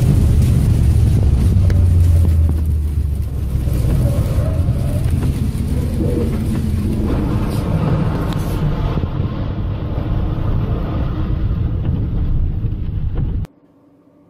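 Loud, steady rumble of a vehicle driving on a wet highway: engine, tyres and water spray on the road. It cuts off suddenly near the end, leaving a faint hum.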